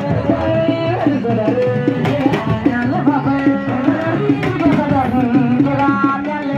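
Hand drums beating a steady rhythm, with a voice singing over them.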